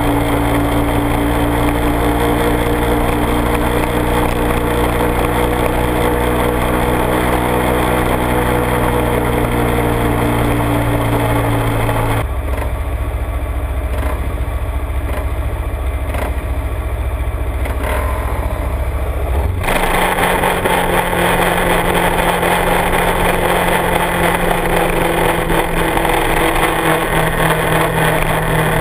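Kawasaki Ninja 250R parallel-twin with a Dan Moto aftermarket exhaust running at a steady cruise, with wind rush over the bike-mounted camera. About twelve seconds in it cuts to a low idle at a standstill for some seven seconds, then back to steady riding.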